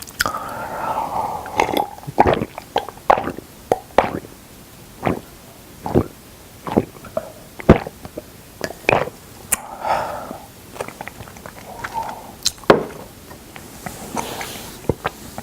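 Close-miked wet chewing of raw salmon: irregular lip smacks and sticky mouth clicks, several a second, with a few brief softer slurping or swallowing sounds.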